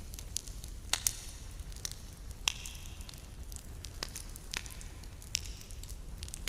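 Campfire crackling, with irregular sharp pops and snaps of burning wood over a steady hiss; the loudest snaps come about a second in, near the middle and a little later.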